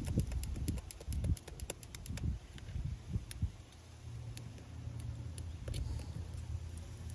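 Light, irregular taps and clicks of small tools and phone parts being handled on a work surface, then a steady low hum from about four seconds in.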